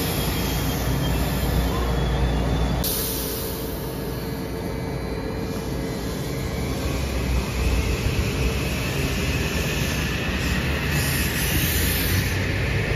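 Shore Line East M8 electric multiple-unit train passing close by: a steady rumble of wheels on rail, with a hiss that grows louder from about seven seconds in. The sound changes abruptly about three seconds in.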